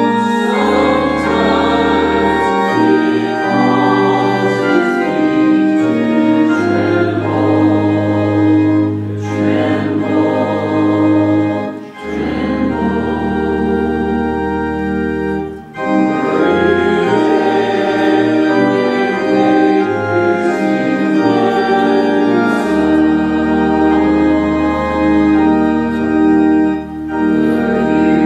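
Congregation singing a hymn to organ accompaniment: held organ chords over a deep pedal bass, with brief breaks between lines of the hymn.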